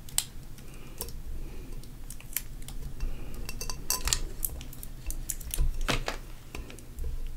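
Irregular light taps and clicks of hands handling a glass beer mug while vinyl lettering on it is repositioned.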